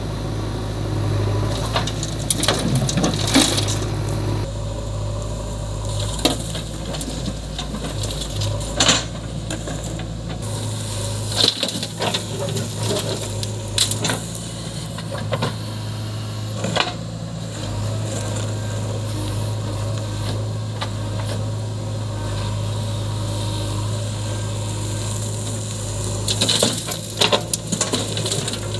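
Diesel engine of a JCB 3DX backhoe loader running steadily at work. Several times there is a rattle and thud as soil and stones drop from the bucket into a steel tractor trolley.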